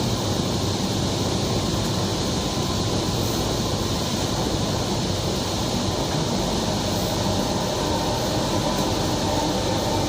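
Steady running noise inside a Kochi Metro train car as it travels along the track between stations.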